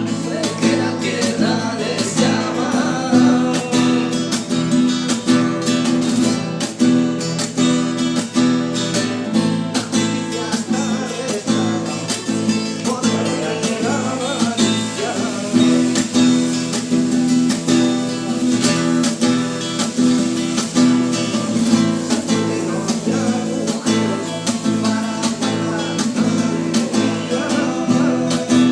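Acoustic guitar music: steadily strummed chords with a picked melody line over them.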